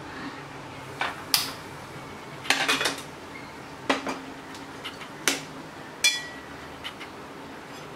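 Stainless steel bowl and metal spatula clinking and knocking against each other and the gas stove's grate as the bowl of grated pumpkin is set on the burner: a string of separate sharp metallic clinks, with a quick flurry about two and a half seconds in and one about six seconds in that rings on briefly.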